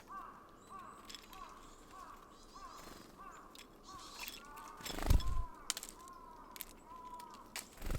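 A bird repeating a short rising-and-falling call note about twice a second, with scattered sharp clicks and taps. One loud, deep thump comes about five seconds in.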